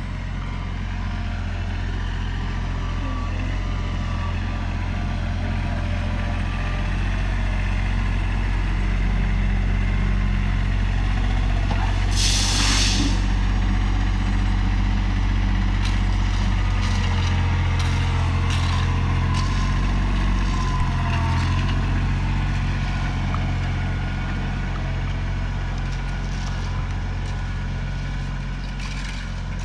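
Tractor engine running steadily under load, with a short hiss about twelve seconds in and a few faint clicks later on.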